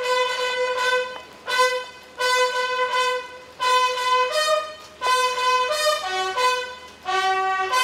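Bugle call on a brass bugle, sounded as a ceremonial salute: a run of held notes with short breaks between them, mostly one note repeated, stepping up to higher notes and down to a lower one near the end.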